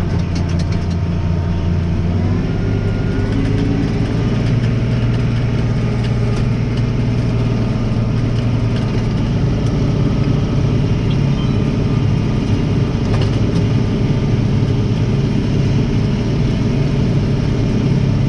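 Tractor engine running steadily while driving a rotary mower through the PTO, its note stepping up in pitch about two seconds in. The mower's slipping gearbox clutch is being tried again and appears to be holding, with the blades cutting.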